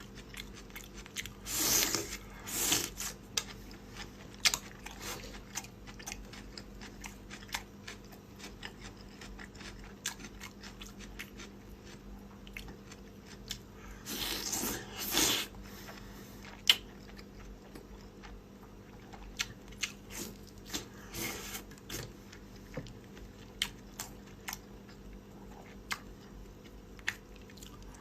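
Close-up eating sounds: chewing and biting with crunches and many small clicks, with louder, noisier stretches about two seconds in and again around the middle.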